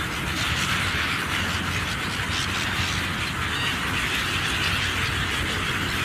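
A large flock of gulls calling all at once, a dense continuous chatter of overlapping cries, over a steady low rumble.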